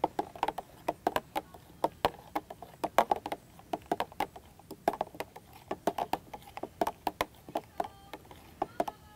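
Metal spoon stirring juice in a juice jug, clinking against the sides unevenly several times a second.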